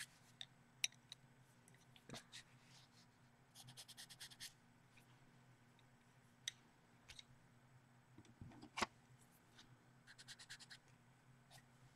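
Near silence over a faint steady hum, broken by a few light clicks and two short bursts of quick pastel-pencil strokes scratching on paper, about four seconds in and again near the end.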